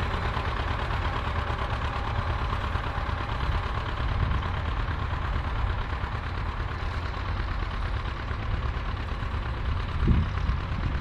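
John Deere tractor engine running steadily, with a strong low rumble, and a brief louder surge about ten seconds in.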